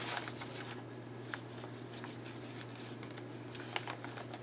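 Faint rustling and a few light taps of paper as a tag is worked out of a pocket in a handmade paper journal, over a steady low hum.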